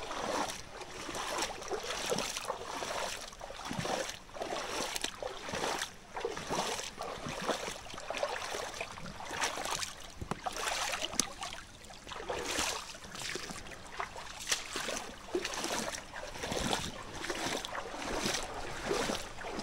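Rubber boots wading through a shallow, flowing creek, a sloshing splash about every second over the running water.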